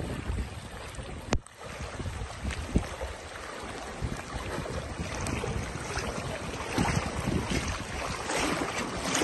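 Floodwater sloshing and splashing around legs wading through knee-deep water beside an inflatable rescue raft, with wind rumbling on the microphone. A brief sharp click about a second in.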